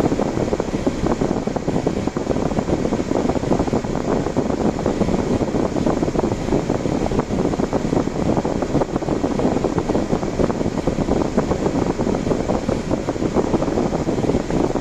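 Steady road and wind noise from a car driving, a low, even noise with no engine note standing out.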